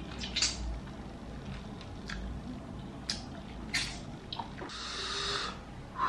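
Close-up eating sounds: a few short, wet mouth clicks and smacks while chewing, then a hiss lasting about a second near the end.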